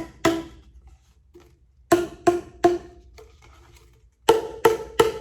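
Plastic boomwhacker tubes struck in three quick sets of three hits, each hit giving a short, hollow, pitched tone from the air column inside the tube. The last set is clearly higher in pitch, from the shortest tube.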